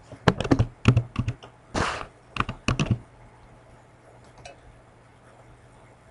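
Typing on a computer keyboard: a quick run of keystrokes that stops about three seconds in, followed after a pause by one faint click.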